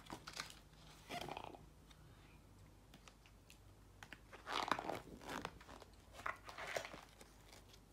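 Faint rustling and scraping of a lift-the-flap board book's cardboard page and flap being handled and lifted, in a few short bursts, the longest about halfway through.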